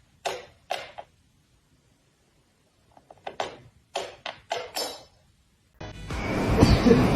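A run of short, sharp clicking or knocking sounds: two near the start and about seven more in quick succession a few seconds later. Near the end a steady rushing noise sets in.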